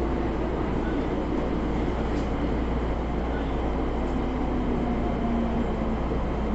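Steady running noise of a JR West electric train heard inside the driver's cab, with faint motor tones that shift slowly in pitch.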